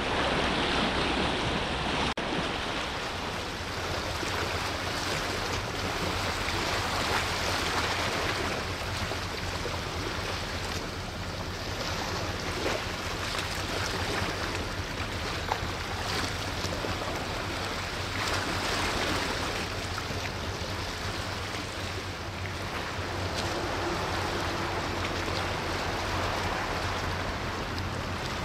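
Steady rushing and washing of sea water, swelling and easing every few seconds, over a low steady hum.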